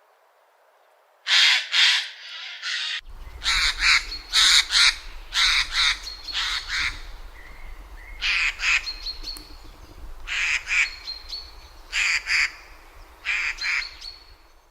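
Eurasian jay giving its harsh, rasping screech calls, mostly in quick pairs, repeated every second or two from about a second in, with faint short whistles between them.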